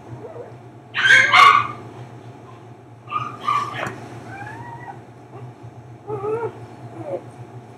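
Whimpering and high squeaky yips from a husky and her newborn puppies: a loud double cry about a second in, another around three and a half seconds, thin rising squeaks near five seconds and a few short cries later, over a steady low hum.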